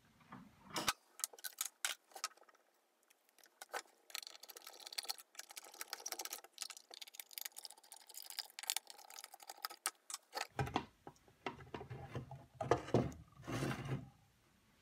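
Handling noise from a Heathkit MM-1 multimeter's bakelite case being taken apart: a run of small clicks and scraping while a screw on its side is undone. About ten seconds in come louder rubbing and knocks as the case is pulled open.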